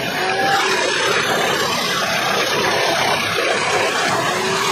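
Large industrial wood chipper running loud and steady, its spiked feed roller drawing a log into the machine.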